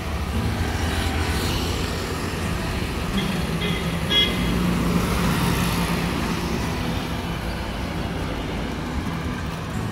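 Street traffic noise: a steady rumble of passing vehicles, with a few short horn toots about three to four seconds in.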